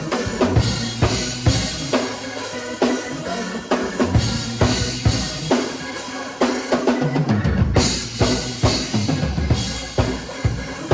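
Drum kit played in a steady groove: kick drum, snare and cymbals struck in quick, even succession. Underneath, a low instrument holds notes that step in pitch, filling out from about eight seconds in.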